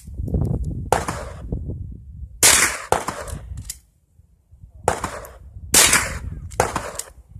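Gunshots from target shooting: several sharp shots at uneven intervals, the loudest about a second in, at two and a half seconds and near six seconds, with fainter reports between them.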